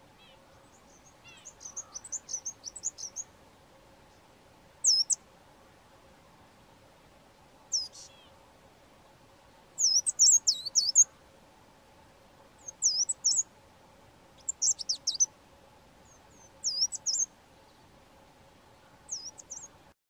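Fairy flycatcher singing: short phrases of very high, thin notes that sweep up and down, repeated every second or two, over a faint steady hum.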